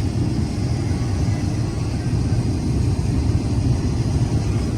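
Case IH 2388 combine running steadily while harvesting soybeans: a constant low engine and machinery rumble.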